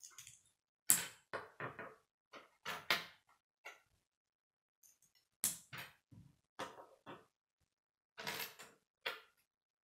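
Plastic K'nex pieces clicking and clacking as they are snapped together by hand, in short irregular snaps. Parts rattle as they are picked from a pile and set down on a wooden table.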